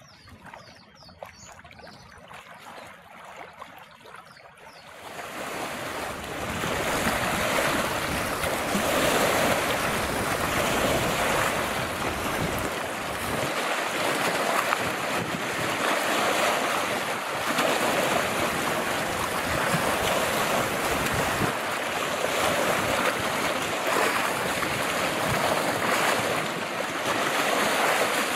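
Choppy lake waves lapping and splashing against a rocky shore, with wind on the microphone, in a steady rush that swells every few seconds. The first few seconds are quieter, and the waves come in loud about five seconds in.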